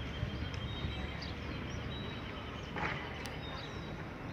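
Toshiba electric train running past: a steady low rumble with a thin, steady high whine over it, and a short scraping noise about three seconds in.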